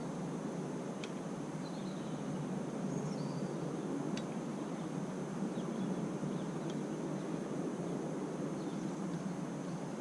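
Steady outdoor background noise with a faint high whine, broken by a few faint light clicks about a second and four seconds in.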